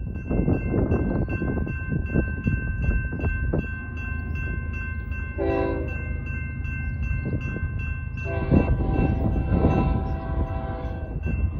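Railroad crossing bells ringing rapidly and steadily at a grade crossing with its gates down, while the horn of an approaching diesel freight locomotive, a GE ES44DC, blows a short blast about five seconds in and then a long blast of about three seconds near the end, the close of the standard crossing signal. A low rumble runs underneath.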